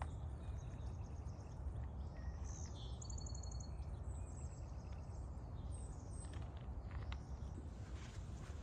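Small birds chirping, with one short rapid trill about three seconds in, over a steady low outdoor rumble.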